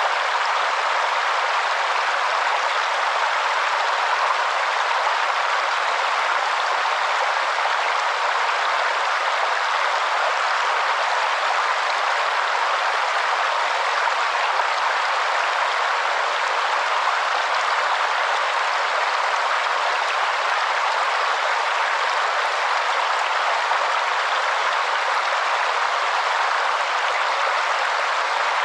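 Waterfall rushing steadily, an even hiss of falling water with no deep rumble.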